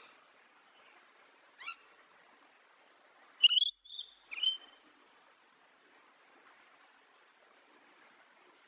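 Parrot calling: one short call about one and a half seconds in, then three louder calls in quick succession a couple of seconds later, over a faint hiss.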